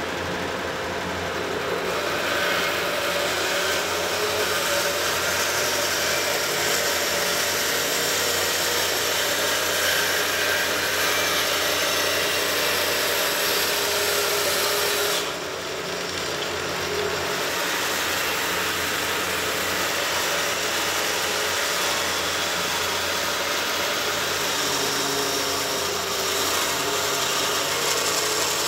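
Large band saw cutting a hickory axe-handle blank: the motor's steady hum under the hiss of the blade through the wood. The cut gets going about two seconds in and drops off briefly about halfway through before going on.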